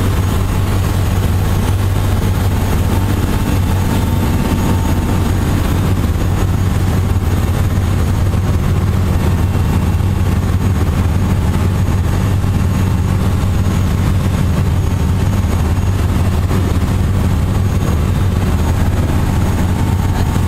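Steady, low engine drone running at an unchanging level, with no rises or breaks.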